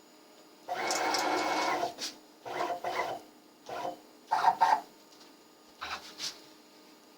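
CNC router's axis motors whining through a series of short moves: one run of about a second, then four shorter ones. This is the machine probing for a corner of the workpiece.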